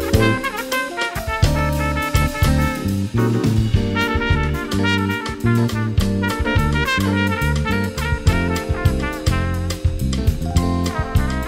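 Live jazz-fusion band playing: drum kit, a busy electric bass line, and a horn melody of trumpet and tenor saxophone.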